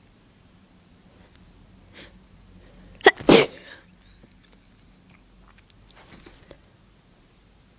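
A person sneezing once, about three seconds in: a sharp start, then a short loud burst.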